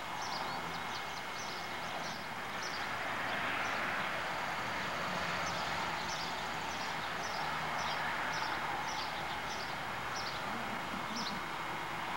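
Outdoor ambience: a steady rushing background noise that swells a little and fades, like distant traffic, with a small bird chirping over it, short high chirps repeating about once or twice a second.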